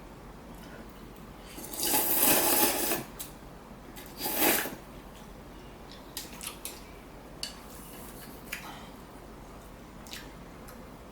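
Ramen noodles and broth slurped twice: a longer slurp about two seconds in and a shorter one a couple of seconds later. Then a few light clicks of utensils against the bowl.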